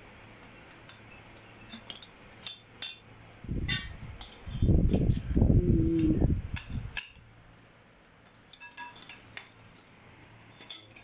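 Metal chair-frame tubes clinking and knocking together as their ends are fitted into connectors, in scattered sharp clicks. A louder low rumble runs for about three seconds in the middle, as a tube is worked into its fitting.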